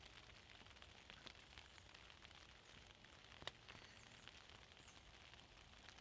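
Near silence: faint drizzle pattering on the tarp overhead, with one small tick about three and a half seconds in.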